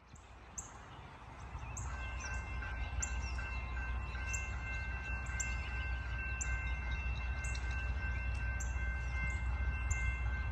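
Small birds chirping again and again in short high notes over a steady low rumble, with a few steady high tones coming in about two seconds in.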